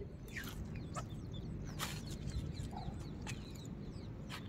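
About six short bird calls, scattered unevenly, over a steady low background noise.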